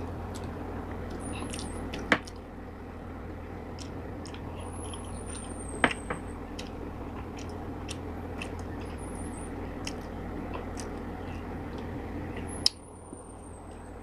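Close-miked eating: chewing and wet mouth sounds while steamed tilapia is picked apart by hand. Small scattered clicks run throughout, and three sharp louder clicks come about 2 seconds in, about 6 seconds in and near the end, over a steady low hum.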